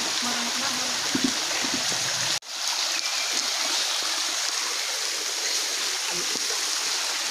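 Shallow stream water rushing steadily over rocks, with faint voices in the first two seconds. The sound cuts out for an instant about two and a half seconds in.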